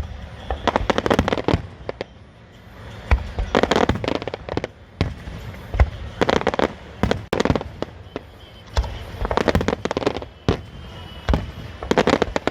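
Aerial fireworks going off in repeated volleys: clusters of rapid crackling bangs every couple of seconds, with a few deep booms in between.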